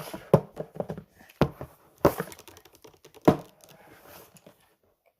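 Handling noises: about four sharp knocks with smaller clicks and light rustling between them, dying away near the end.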